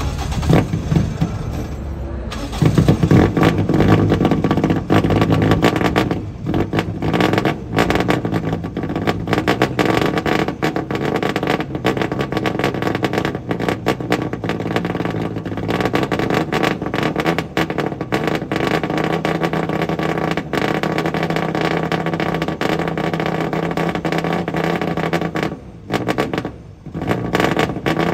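Toyota AE92 Corolla Group A race car's twin-cam four-cylinder engine starting up. It catches with a loud burst about two and a half seconds in, then runs at a rough, uneven idle with occasional revs.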